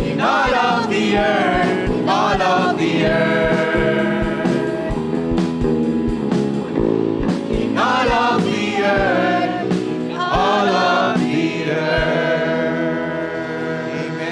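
Worship band music: voices singing over sustained guitar chords and a steady kick-drum beat. The drum beat drops out about twelve seconds in as the song winds down.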